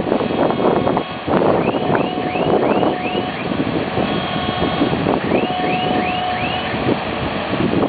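Skid-steer loader's engine running steadily as it drives the grader blade through loose soil. Twice a run of short high squeaks repeats about three times a second.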